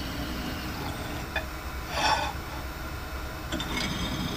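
Drill press running with a steady motor hum as its twist drill cuts into an aluminium bar. A brief louder scraping burst comes about two seconds in, with lighter ones near the end.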